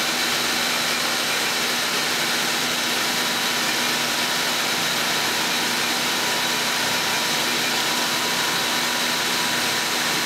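Okuma Multus B300 lathe's live-tool spindle running free at 4,500 RPM with no workpiece in the chuck: a steady whine over an even hum.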